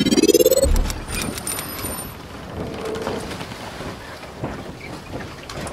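Logo intro sound effect: a rising whoosh that ends in a deep boom under a second in, followed by a steady hiss with scattered clicks and brief thin high tones.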